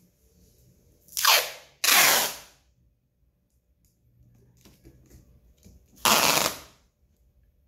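Brown packing tape pulled off its roll in three loud, ripping bursts, each about half a second long: two close together about a second in, and a third about six seconds in. Faint rustling of hands on the taped cardboard box in between.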